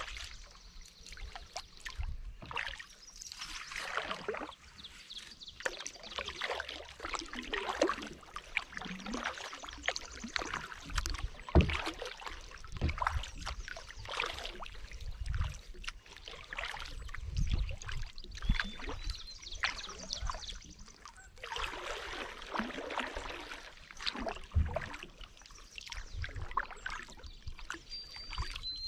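Kayak paddle strokes, each a wash of splashing and dripping water, recurring every second or two, with a few low thumps among them.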